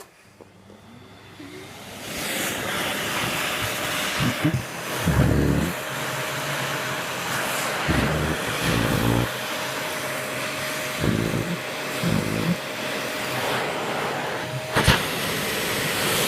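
Vacuum cleaner motor starting up and running with a steady whine, giving off several irregular low, blatting farting sounds lasting about half a second each. A sharp click comes near the end.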